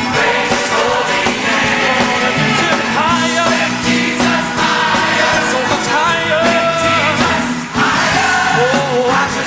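Gospel song performed live, with singing over the accompanying band.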